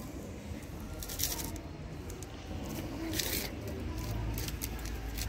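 Kittens chewing and tearing at raw meat on a plate: wet smacking with scattered sharp clicks and snaps. A low hum comes in near the end.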